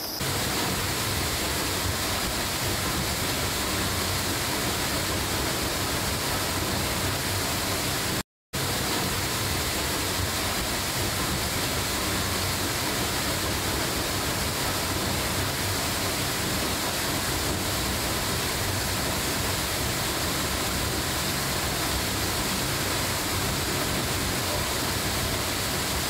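Tall waterfall pouring into its plunge pool: a steady, even rush of water. The sound cuts out for a moment about eight seconds in.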